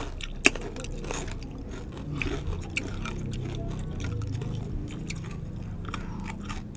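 Close-up chewing and crunching of crispy deep-fried pork belly skin, with scattered sharp crackles, the loudest about half a second in, over a low steady background rumble.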